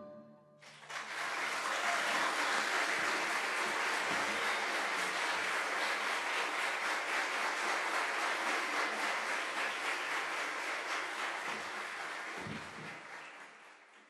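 Audience applause in a theatre, beginning just under a second in as the guitar's last chord dies away. It holds steady, then fades out near the end.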